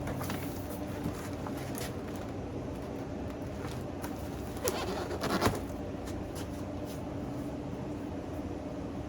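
Steady low hum, with brief rustling and handling noises of fireworks packaging about halfway in.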